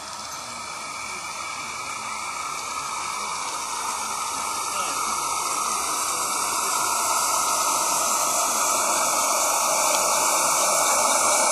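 Steady hiss from a garden-scale live-steam locomotive and its work train, growing steadily louder as it approaches and passes close by.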